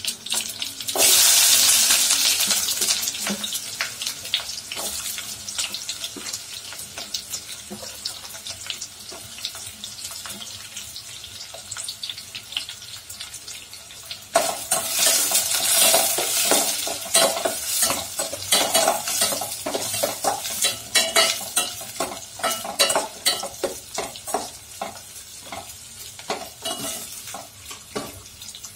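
Hot oil and ghee in a steel pot sizzling loudly as chopped onions drop in about a second in, the sizzle slowly dying down. About halfway through, a slotted steel spoon starts stirring, scraping and clinking against the pot over the frying.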